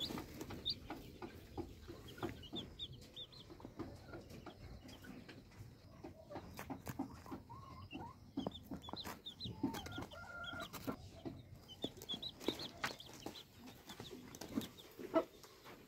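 Newly hatched chicks peeping softly with many short, high cheeps, while the broody hen sitting over them clucks low now and then.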